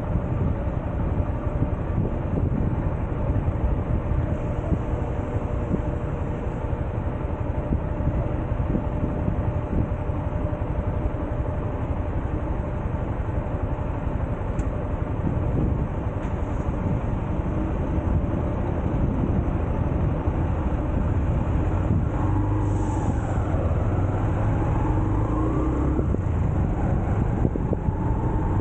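Honda CB125F's small single-cylinder engine running on the move, mixed with rushing wind and road noise. About three-quarters of the way through, the engine note dips and climbs again as the throttle changes.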